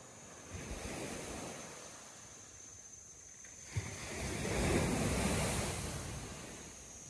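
Small waves breaking and washing up a sand beach: a lighter wash about half a second in, then a bigger wave breaking about four seconds in and surging up and back for a couple of seconds. A single short tick just before the bigger wave.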